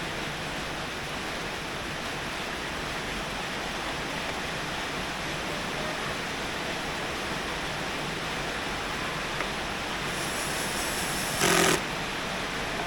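Heavy rain falling in a steady, even hiss. About eleven and a half seconds in, a brief louder sound cuts in for under half a second.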